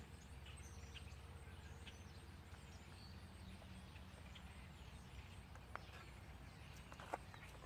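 Near silence: faint outdoor background with a low steady hum, a few faint bird chirps, and a couple of small clicks late on.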